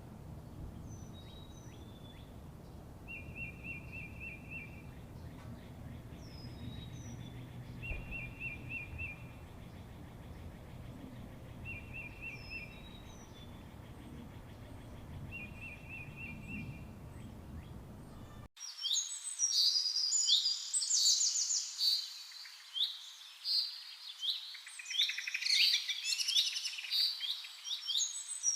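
Birds singing: at first a single short, high trill repeated about every four seconds over a low background rumble. About two-thirds of the way in it changes abruptly to a louder, dense chorus of many birds chirping.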